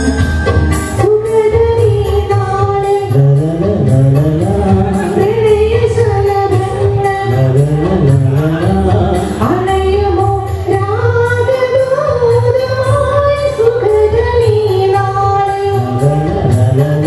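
A man and a woman singing a duet into microphones over amplified backing music with a steady beat.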